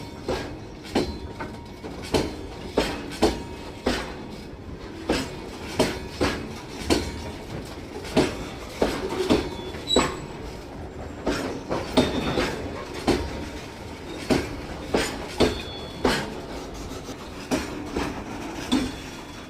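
Train wheels clattering over the small gaps at rail joints: repeated sharp knocks, often in pairs and groups, a few every second, over a steady low rumble of the moving train.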